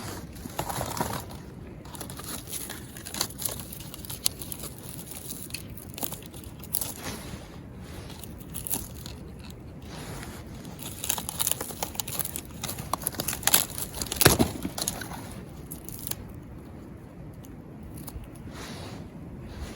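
Dry tinder being torn, crumpled and scraped by hand, a run of irregular tearing and crinkling scrapes that gets busier and louder about two-thirds of the way through.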